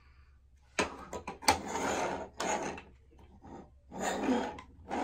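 A plastic Lightning McQueen toy car knocks twice on a wooden tabletop about a second in. It is then pushed back and forth, its wheels rolling and rubbing on the wood in scraping bursts.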